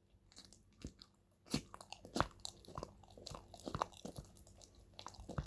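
Thick, sticky slime being stirred with a stick in a bowl, giving irregular soft clicks and squelches, while activator is worked in and the slime comes together.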